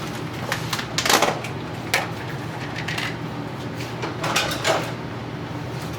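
Kitchen handling noises: a few knocks and clatters, about one and two seconds in and again around four and a half seconds, as food containers and utensils are handled, over a steady low hum.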